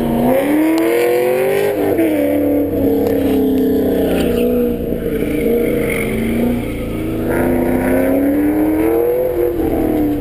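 Car engine revving in slow swells: its pitch climbs, falls back about two seconds in, climbs again and drops near the end.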